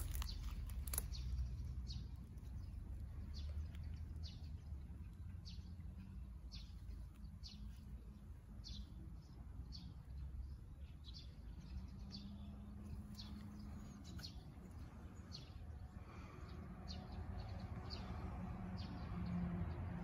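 A bird calling over and over in short chirps, about one and a half a second, faint over a low rumble of wind or handling noise.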